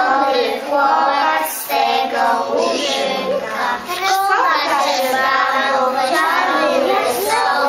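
A group of young children singing a song together in unison, with a woman's voice singing along.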